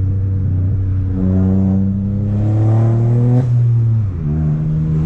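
Chevrolet Onix 1.0 turbo three-cylinder engine with a downpipe and sport exhaust, running steadily and then revving up under acceleration for about two seconds. A brief click comes at the peak, after which the revs fall away and settle to a steady lower note.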